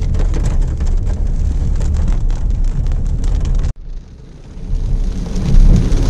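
Rain pattering on a car's windshield and roof while driving, over a low road rumble. The sound cuts off abruptly about two-thirds of the way through, then a low rumble builds back up near the end.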